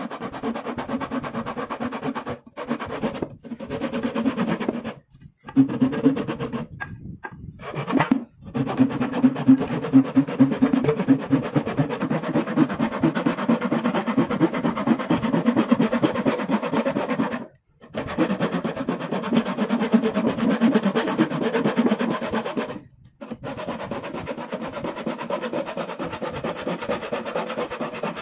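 Hand sawing through a wooden board with a thin saw blade: fast back-and-forth strokes rasping along a curved cut, stopping briefly a few times and starting again.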